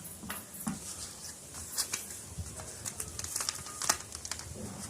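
Plastic parcel packaging being torn open and handled, with irregular crinkling and scattered sharp clicks.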